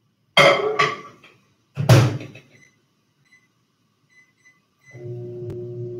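Microwave oven being started: the door is shut with a few loud thunks, a handful of short faint keypad beeps follow, and about five seconds in the oven starts running with a steady hum.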